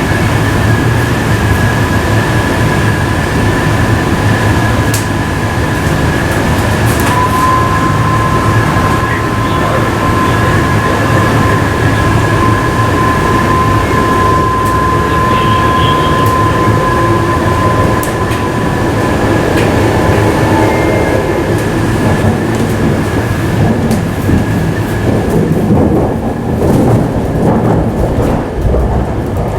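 MTR IKK-train running on the track: a steady rumble of wheels on rail with scattered clicks, under a steady high whine from the traction equipment that grows stronger for about ten seconds partway through.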